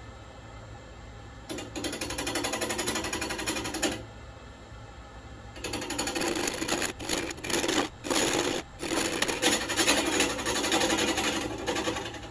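Wood lathe running with a low hum while a turning tool cuts the end of a spinning walnut-and-epoxy blank. There are two bouts of cutting: a short one about a second and a half in, and a longer one from about six seconds that breaks off briefly a few times and stops just before the end.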